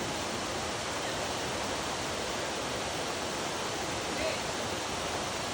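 Steady rush of river water pouring down a natural rock slide, with a faint voice briefly about four seconds in.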